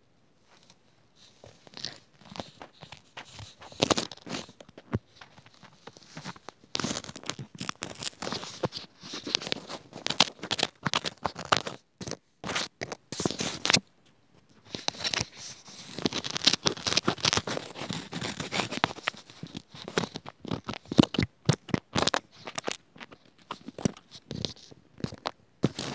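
Close-up ASMR handling sounds: dense, irregular crinkling, crackling and scratching of small objects worked right at the microphone. The sounds come in busy spells, with two brief pauses about halfway through.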